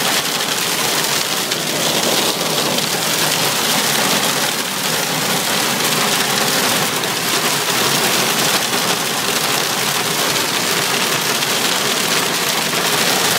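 Hail pelting the roof and windshield of a car, heard from inside the cabin: a dense, steady drumming with no let-up.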